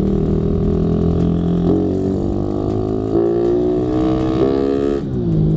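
Suzuki Raider 150 motorcycle's single-cylinder four-stroke engine running under way. Its pitch steps twice, about a second and a half in and again about three seconds in, rises slowly, then drops near the end.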